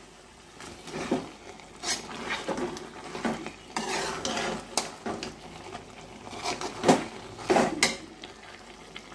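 Steel spoon stirring a thick crab masala in a metal pot, scraping the sides and bottom with irregular clinks of metal on metal.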